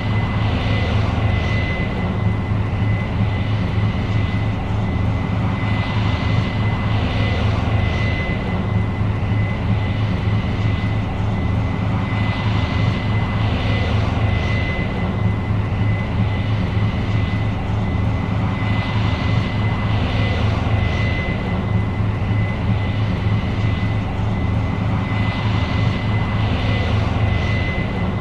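New Holland CR 7.90 combine running steadily while harvesting corn: a low engine drone under a constant high whine, with a rush of higher noise that swells and fades every several seconds.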